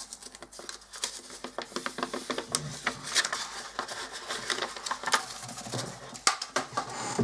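Paper wrapping crinkling and rustling as it is torn open and unrolled from a rubber printer roller, in dense irregular crackles with a few sharper snaps.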